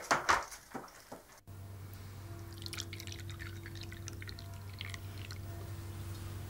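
A door being shut, a few clicks and knocks in the first second and a half. Then coffee is poured from a glass carafe into a porcelain cup, a thin trickle over a steady low hum.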